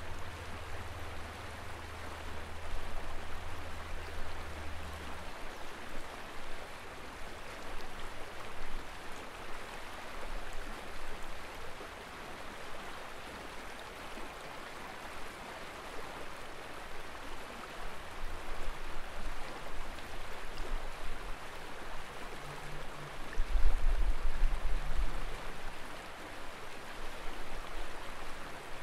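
Steady rushing of a shallow river flowing over rocks and riffles. Low rumbles come in over it during the first few seconds and more loudly later on.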